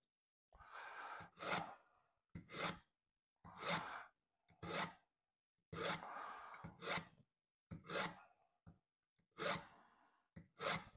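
Knife blade pulled repeatedly through a Smith's mini pull-through knife sharpener: nine short scraping passes about a second apart, each ending in a sharp, high scrape of steel on the sharpening slot.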